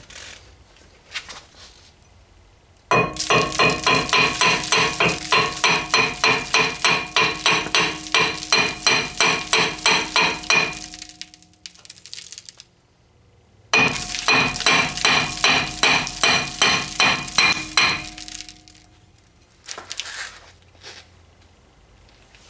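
Hammer striking the back of an Opel Corsa D's old cast-iron brake disc to knock it loose from the hub: two long runs of quick, even blows, about three a second, each leaving the disc ringing, with a few single knocks around them.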